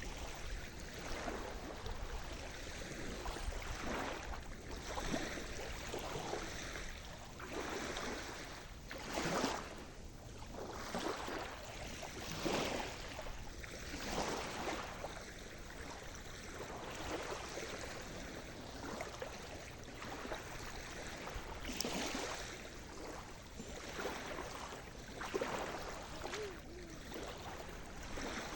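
Sea surf: small waves washing and splashing in an irregular series every second or two over a steady wash of water, a few splashes louder than the rest.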